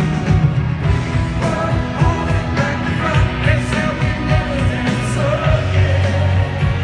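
A live band playing a rock song through a stadium PA, with a lead vocal over drum hits and steady bass notes, heard from the stands.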